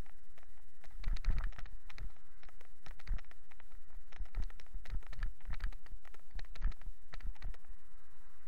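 Irregular knocks and rattles, several a second, of a bicycle and its mounted camera jolting over a rough dirt path.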